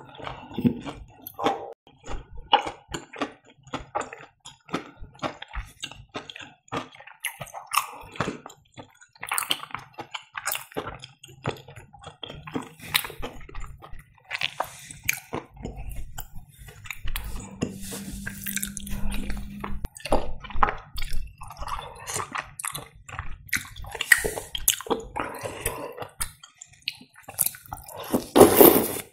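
Close-miked chewing of fried cheese, with wet mouth clicks and smacks throughout. Near the end comes a loud, juicy bite into a slice of pink grapefruit.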